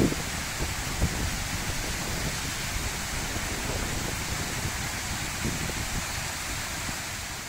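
Water splashing down a tiered stone cascade in a steady, even rush.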